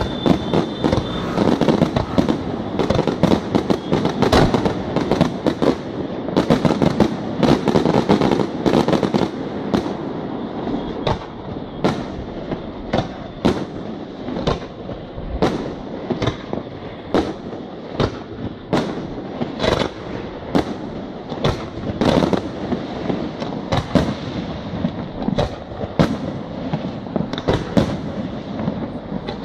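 Setti Fireworks aerial shells bursting in quick succession: sharp bangs over a continuous rumble and crackle. The bangs come thick and fast for the first ten seconds or so, then space out to roughly one or two a second.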